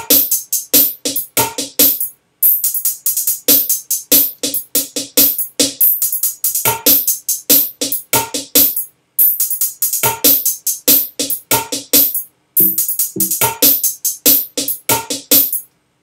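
A programmed drum-machine beat playing back from FL Studio: a loop of sharp, crisp hits with some low tonal hits under them. It stops and restarts a few times, as though the loop is being replayed while it is edited.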